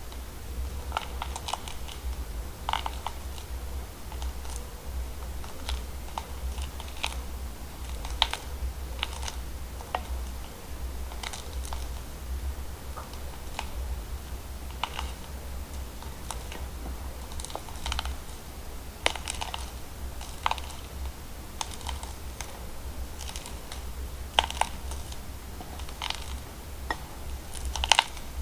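Slime being pressed and played with, giving off irregular sharp clicks and small pops, about one or two a second, over a steady low hum.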